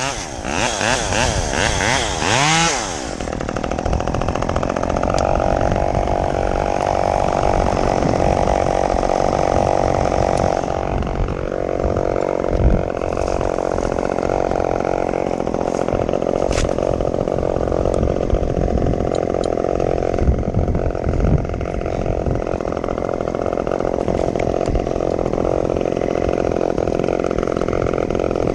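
Chainsaw revved up and down for about three seconds, then running steadily, with a few brief clicks over it.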